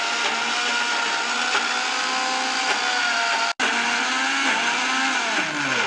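Electric mixer grinder motor running at full speed, grinding chopped ginger and garlic with a little water into paste: a steady high whine. It cuts out for an instant about three and a half seconds in, then falls in pitch near the end as the motor spins down.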